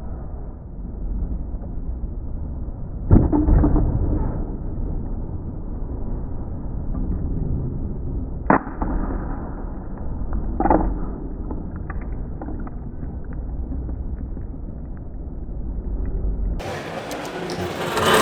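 A few sharp knocks over a muffled, steady background din: a bobblehead falling and breaking its head. The loudest knock comes about three seconds in, a short sharp click about eight and a half seconds in, and a weaker knock soon after. Near the end the background turns brighter and louder.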